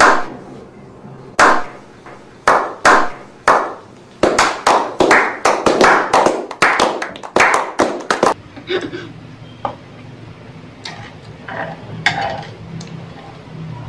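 A small group of men clapping: a slow clap of single claps that speeds up into fast, continuous clapping, then stops abruptly about eight seconds in. Fainter scattered taps and clicks follow.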